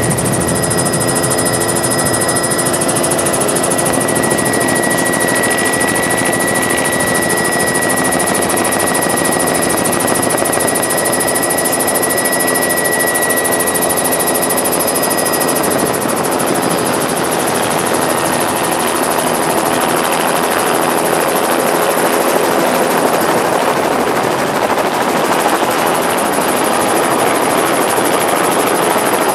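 Helicopter engine and rotor running loud and steady. A high, thin whine over the rotor noise drops away about halfway through.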